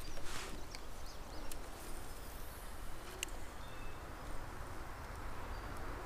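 Quiet riverside ambience: a steady low rumble with a few short, high bird chirps and occasional light clicks. A brief swish comes just after the start.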